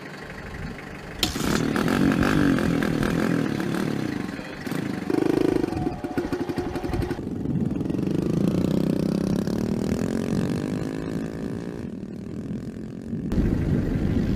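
Small dirt bike engines starting and revving, then a bike pulling away with its engine note rising and falling. The sound changes abruptly a few times.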